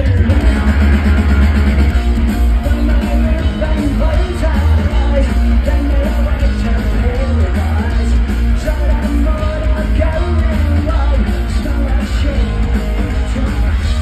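Live rock band playing loud through a festival PA: electric guitars, heavy bass and drums, with singing over the top, heard from within the crowd.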